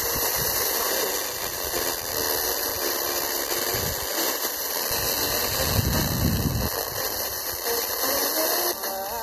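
FM radio static from a TEF6686 receiver tuned to a weak, noisy signal: a steady loud hiss with faint traces of a distant station's audio beneath it.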